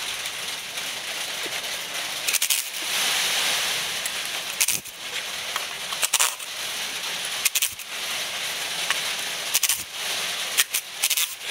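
Metal clinks and short runs of ratchet clicking as hand tools work the exhaust manifold nuts on an Audi 5.2 V10, over a steady hiss.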